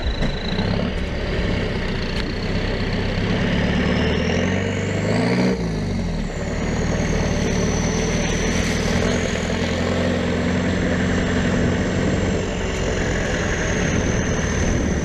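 Land Rover Defender 90 engine running under way in low-speed off-road driving. Its pitch climbs for about five seconds, then drops back and holds steady. A thin high whine rises and falls over the engine.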